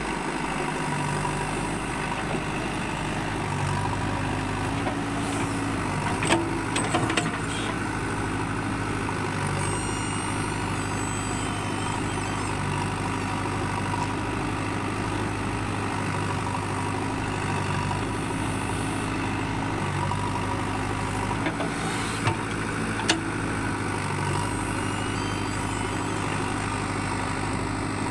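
JCB backhoe loader's diesel engine running steadily while the backhoe digs and swings loads of sand, its pitch shifting slightly with the work. A few short knocks come about six seconds in and again near the end.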